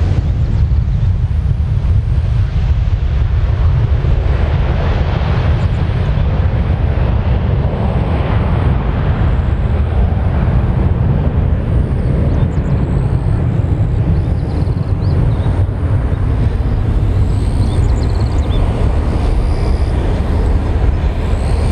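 Boeing 737-800's CFM56 jet engines at takeoff power, a deep steady roar as the airliner climbs away. The higher hiss thins out over the first ten seconds or so, leaving mostly the low rumble.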